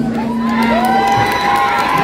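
Football crowd cheering and shouting, with one long drawn-out shout held over the crowd for about a second and a half.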